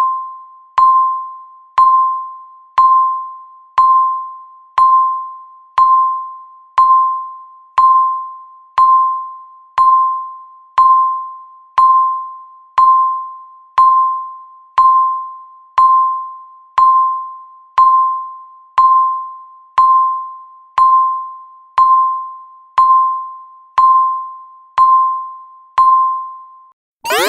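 Countdown timer beeps: one short electronic beep a second, each a single ringing tone that fades quickly, counting down the final seconds to zero.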